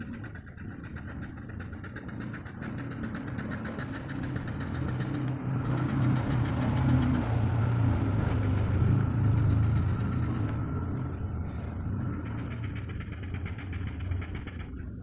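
An engine running with a low steady hum, swelling to its loudest about halfway through and then easing off.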